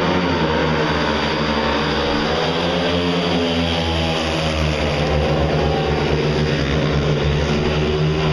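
Speedway bikes' 500 cc single-cylinder methanol engines racing together round the track, loud and steady; their pitch dips just as the riders enter the bend.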